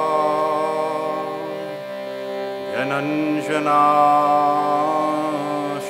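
A man chanting a Sanskrit devotional prayer in long, drawn-out sung notes over the steady drone of a hand-pumped harmonium. His held note fades about two seconds in, and a new phrase slides in near three seconds and is held almost to the end.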